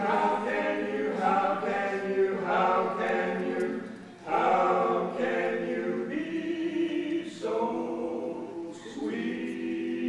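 A cappella vocal group singing held chords in harmony, with short breaks between phrases about four seconds in and again near the end.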